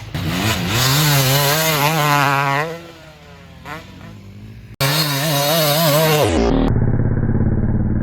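Dirt bike engine revving, its pitch rising and falling repeatedly in two stretches split by an abrupt cut about five seconds in. Near the end it turns muffled and dull, settling into a steady low engine run.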